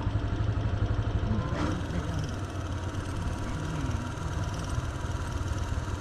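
Motorbike engine running at low speed with a steady low rumble, its pitch shifting slightly a couple of times.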